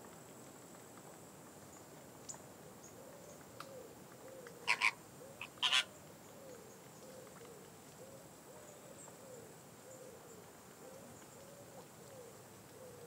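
Greater flamingos calling: two pairs of short, loud honks about five seconds in, over a run of soft, low calls from the flock repeating about twice a second.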